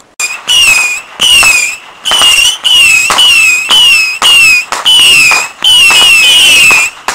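Whistling fireworks going off in quick succession: a loud string of shrill whistles, each about half a second long and falling slightly in pitch, coming about two a second with short gaps between them.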